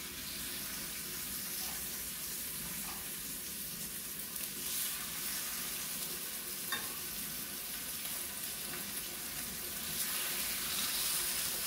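Chicken thigh pieces sizzling in very hot vegetable oil in a stainless steel frying pan, a steady frying hiss, with a few light clicks of metal tongs against the pan as the pieces are laid in. The sizzle gets a little louder near the end as more chicken goes in.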